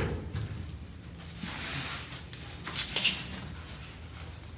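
A 1965 VW Beetle car door being handled and worked on its hinges during a test fit: a knock at the start, a scraping rub about halfway in, and a couple of sharp clicks around three seconds in.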